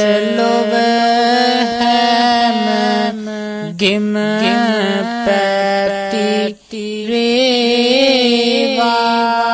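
A monk's voice chanting Sinhala Buddhist verse in long, wavering held notes over a steady drone tone. It breaks off briefly about two-thirds of the way through.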